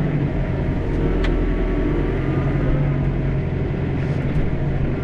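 John Deere 4066R tractor's diesel engine running steadily, heard from inside the cab as a low, even hum while the grapple works logs. A single short click about a second in.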